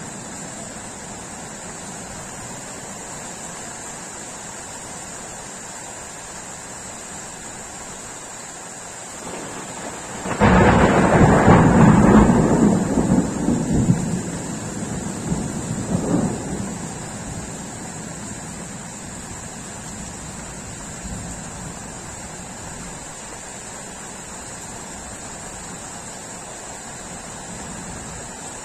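Steady rain hiss, then about ten seconds in a sudden loud clap of thunder that rumbles for several seconds, swells once more a couple of seconds later and dies away.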